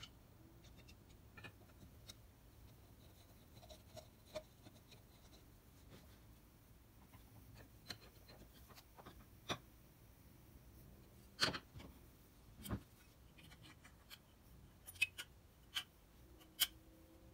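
Sparse small metal clicks and taps as a Stanley No. 5 bench plane is reassembled by hand: a screwdriver working the frog screws and steel parts knocking against the cast-iron body. The loudest clicks come about two-thirds through, with a quick run of them near the end.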